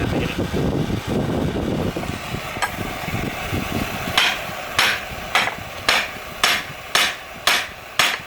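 Hammer blows setting the rivet on a pair of blacksmith's tongs: eight sharp, evenly spaced strikes, about two a second, starting about halfway through. Before them a low rumbling noise.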